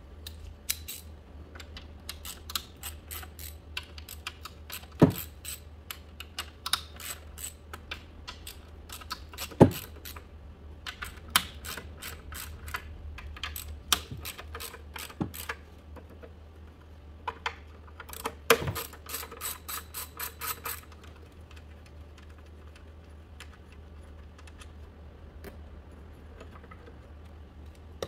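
Hand ratchet clicking in quick runs as it turns a fastener on the engine, with a few louder knocks of metal. The clicking stops about three quarters of the way through.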